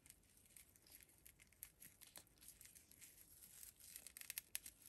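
Faint crinkling and rustling of paper cord as a paper strip is pulled and wound tightly around a bundle of paper cord, with a run of sharper crackles near the end.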